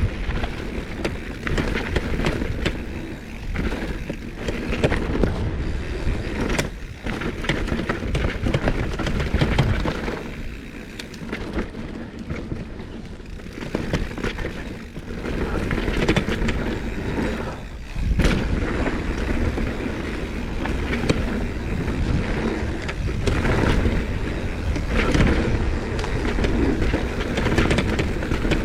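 Mountain bike rolling fast down a dirt trail: a continuous rumble of tyres on rough ground and the bike rattling, with scattered sharp knocks from bumps.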